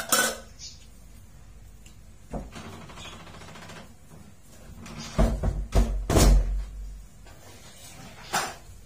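Knocks and clatters of a plate and raw ingredients being handled and set down: a sharp clatter at the start, a knock a little over two seconds in, a cluster of heavier knocks and bumps around five to seven seconds in, and one more knock near the end.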